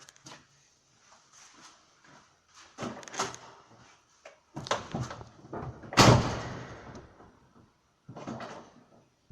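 VAZ-2112 clutch pedal and cable release being worked several times with a new cable lever that runs on two bearings: a string of knocks and clunks with no squeak, the squeal of the worn standard lever rubbing on the release fork now gone. A loud slam about six seconds in.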